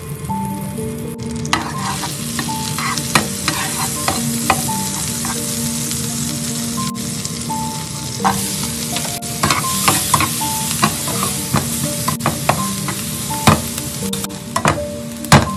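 Butter sizzling and foaming in a nonstick frying pan, with a plastic spatula clicking and scraping against the pan. About halfway through, chopped onions go into the hot butter and the sizzle grows brighter; the sharpest knock comes near the end.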